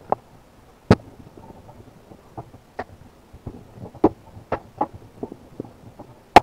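Pizza dough being pressed and patted flat on a floured work surface: a series of irregular soft thumps, about two a second, a few of them louder.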